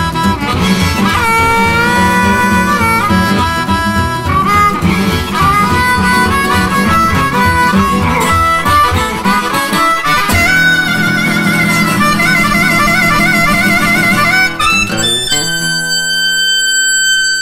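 Electric blues band with a harmonica leading in long, wavering held notes over a steady beat. Partway through the beat drops out, and the song closes on held final notes ringing out.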